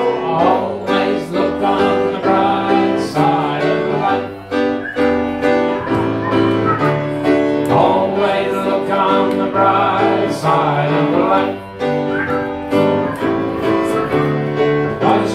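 Grand piano played with a man singing along to his own accompaniment, a continuous upbeat song.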